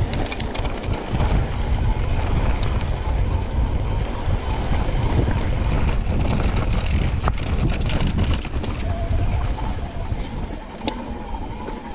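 Mountain bike riding a rough trail: wind buffeting the microphone over the rumble of tyres on dirt and stones, with scattered sharp clicks and rattles from the bike. A faint steady whine comes in during the last few seconds.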